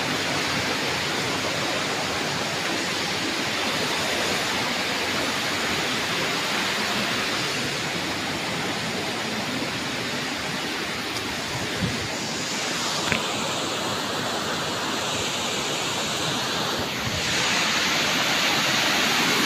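Steady rush of a waterfall pouring into a rock pool, growing louder near the end. Two faint knocks are heard a little past the middle.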